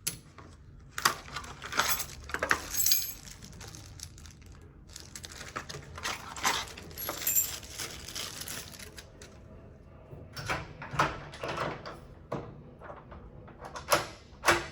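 Metallic clicks, scrapes and key jingles of a new lock cylinder being slid into a door's lock case and fitted, in several short bursts with pauses between them.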